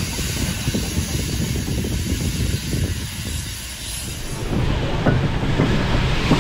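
DFB HG 4/4 steam locomotive on the move: a steady hiss of escaping steam over the low rumble of its running gear. The sound changes abruptly and grows louder about three-quarters of the way through.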